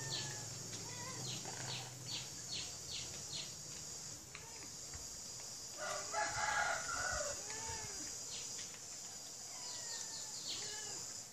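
Short rising-and-falling animal calls recur every second or so, with a longer, louder call with several overtones about six seconds in, over a steady high-pitched drone.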